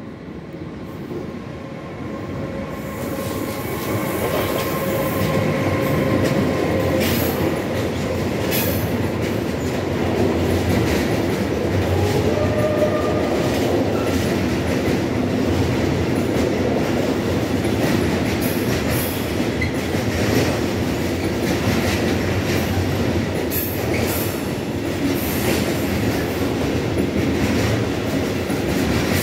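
A train approaching and then rolling past close by, getting louder over the first few seconds and then holding a loud, steady rumble with the wheels clicking over the rail joints.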